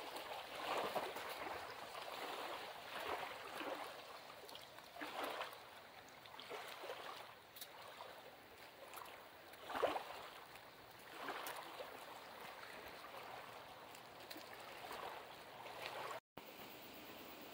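Faint running water trickling, with soft gurgles every second or two.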